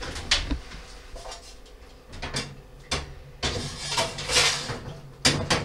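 Oven door opened and a baking dish of bread dough slid into the oven, with several clatters and knocks of metal and dishware against the oven rack.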